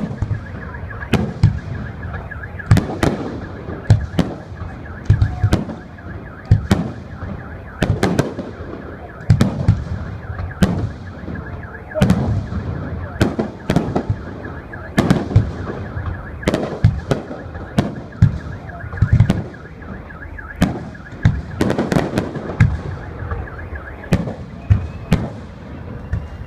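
Fireworks display: a dense, irregular run of loud shell bursts, a bang every half second to second and a half, each trailing off, with a steady high tone running underneath.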